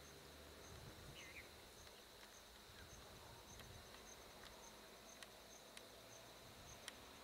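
Near silence with faint insects: a steady high buzz and a soft pulse about twice a second. A short bird chirp comes about a second in, and a few faint clicks near the end.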